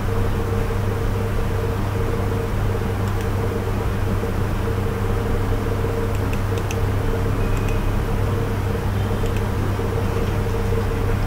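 Steady low hum over a fan-like background noise, with a few faint clicks.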